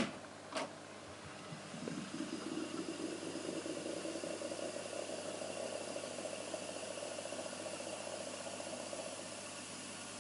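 Akai GX-215D reel-to-reel tape deck: a click from its transport control about half a second in, then the reels fast-winding the tape with a steady mechanical whir that eases slightly near the end.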